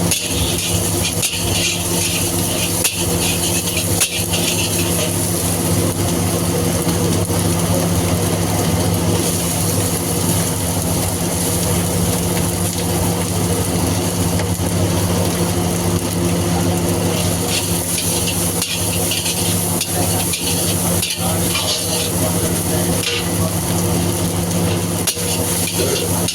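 Beaten eggs frying with a sizzle in a hot wok as a metal ladle stirs and scrapes, with scattered sharp clicks of metal on the pan. A steady low hum runs underneath.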